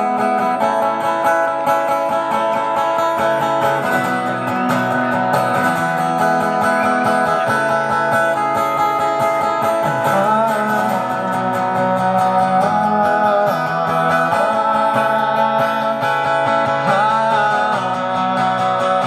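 Acoustic guitar strummed steadily through an instrumental passage of the song, with chords changing every second or two.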